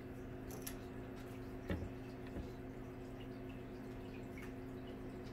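Quiet steady room hum with a few faint light taps from a divider's points and a pencil touching a wooden drawing board.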